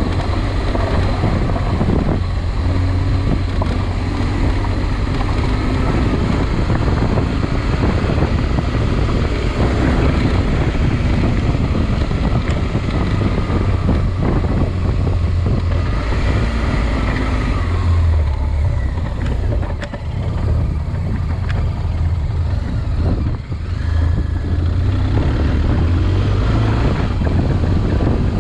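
A motor vehicle's engine running continuously under load, with wind noise on the microphone. The engine note dips briefly twice in the second half.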